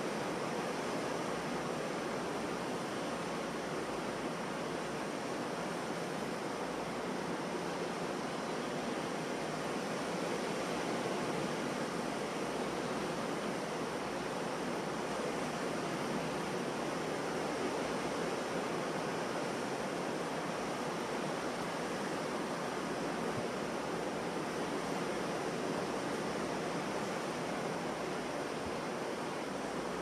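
Ocean surf breaking on a beach, a continuous steady wash of wave noise.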